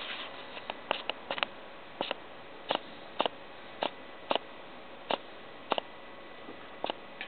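A person gulping soda from a bottle: a run of short, sharp swallowing clicks, roughly one every half second, over a quiet background.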